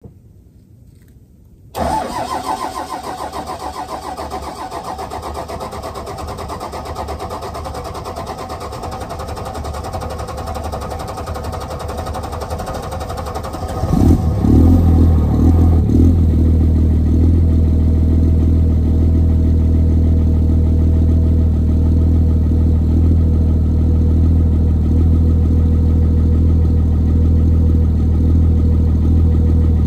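Cummins 5.9 24-valve inline-six diesel cranking on the starter for about twelve seconds, from about two seconds in, before it catches, runs unevenly for a couple of seconds, then settles into a steady idle. It is a hard cold start: grid heater deleted, no block heater, and the engine on its lowest-fueling tune.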